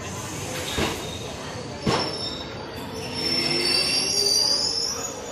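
Indian Railways passenger coaches rolling past as the train comes into the station, their wheels knocking twice over rail joints. From about three seconds in comes a high-pitched wheel squeal, the loudest part, as the train slows.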